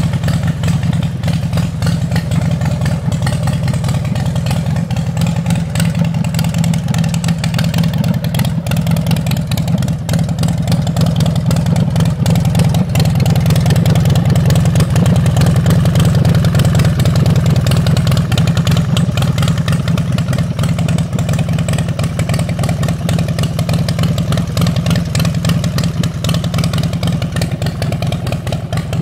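Harley-Davidson Night Train's Twin Cam 88B V-twin idling steadily, with no revving; a little louder for a few seconds near the middle.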